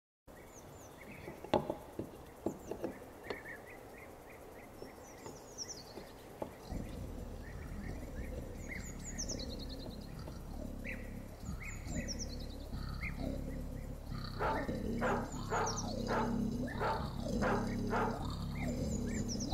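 Birds calling: short high chirps recur throughout, with a few sharp clicks in the first few seconds. A low steady hum comes in about a third of the way through, and from about three-quarters through a run of about eight loud repeated calls follows.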